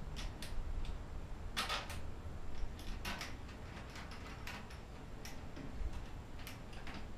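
Irregular clicks and light knocks of motorcycle parts being fitted back into place and lined up, over a low steady background hum.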